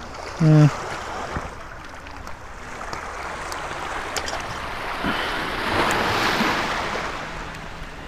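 Sea waves washing onto a pebble beach: a surge of surf that swells to its loudest about three-quarters of the way through, then eases off.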